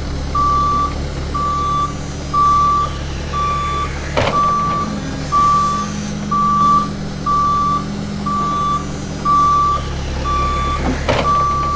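A truck's reversing beeper sounding a steady single-tone beep about once a second over a low engine hum, with two sharp clicks, one about four seconds in and one near the end.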